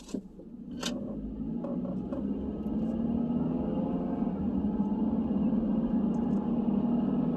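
Car engine and road noise heard from inside the cabin, building over the first few seconds as the car gathers speed, then holding steady. A single click sounds about a second in.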